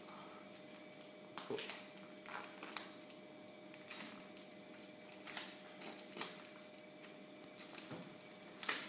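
Clear plastic shrink wrap being picked at and peeled off a cardboard box, crinkling in a series of short crackles, the loudest near the end.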